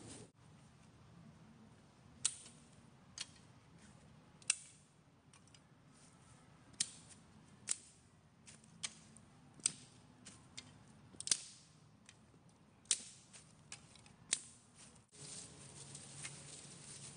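Dry sticks snapping by hand and underfoot, about a dozen sharp cracks at irregular intervals over a quiet forest background.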